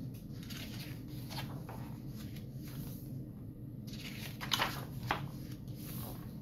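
Quiet room with a steady low hum and a few soft paper rustles from a picture book's pages being handled and turned, the loudest about four and a half and five seconds in.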